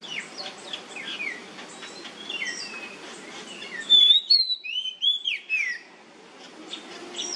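Oriental magpie-robin singing: a run of quieter chirps and whistles, then about four seconds in a loud burst of clear, sliding whistled phrases lasting about two seconds.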